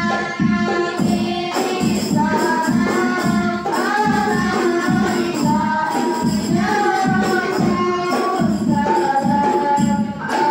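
A group of children singing together in unison over a steady beat of frame drums (rebana).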